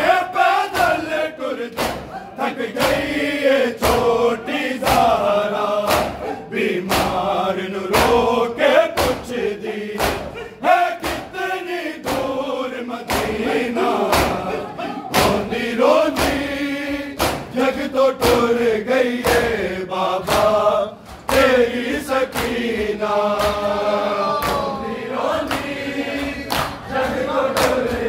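A crowd of men chanting a noha in unison, a Shia mourning lament, with sharp, regular slaps of hands beating on chests (matam) keeping time under the singing.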